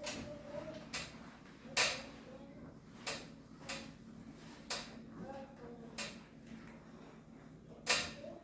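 A series of sharp knocks and clacks, about eight at irregular intervals, from hard kitchen objects being handled during cleaning.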